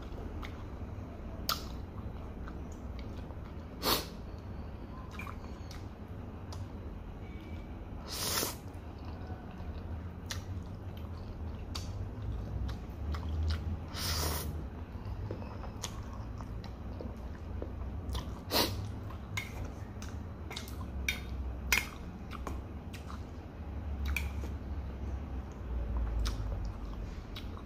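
A person eating fried noodles with chopsticks: chewing with short wet smacks and clicks scattered throughout, and longer slurps of noodles about 8 and 14 seconds in.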